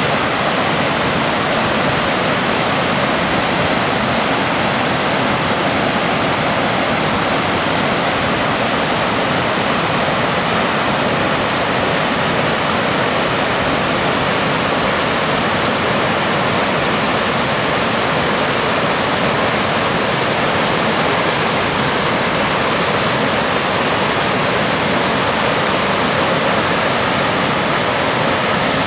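A creek waterfall running full, its water cascading over stepped rock ledges into a foaming pool with a steady, unbroken rush.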